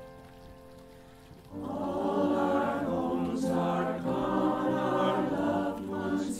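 Mixed choir of men's and women's voices singing a requiem. After a quiet second and a half, the voices come in together on sustained chords and hold them, breaking off briefly near the end.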